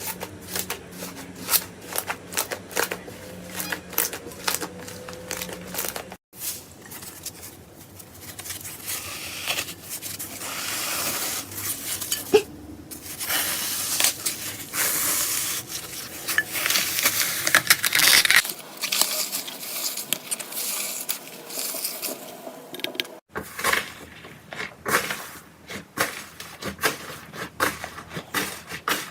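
Slime being squeezed and handled, with many sharp sticky clicks and pops and a crackling hiss that grows denser in the middle part. It breaks off abruptly twice, about six seconds in and again near the end, as one clip gives way to the next.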